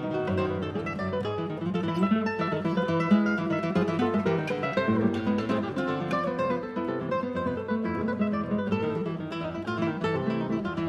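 Background music: acoustic guitar playing quick plucked and strummed notes in a flamenco-like style.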